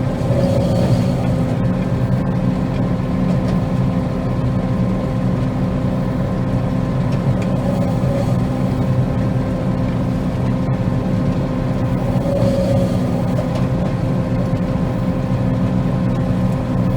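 Combine harvester running steadily while cutting soybeans: an even engine and machinery drone with a constant hum, unchanged throughout.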